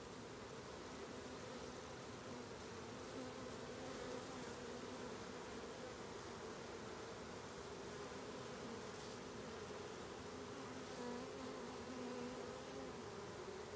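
A swarm of honey bees buzzing steadily, many wingbeats blending into a wavering hum.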